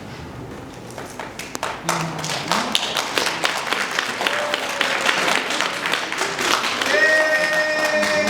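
Audience applauding, a dense patter of clapping that builds about a second in and thins out near the end. A steady held note begins near the end.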